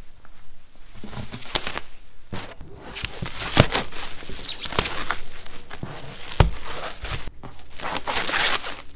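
Plastic stretch wrap being pulled and peeled off a cardboard box, crinkling and tearing. Two sharp snaps stand out, one midway and one about two-thirds through.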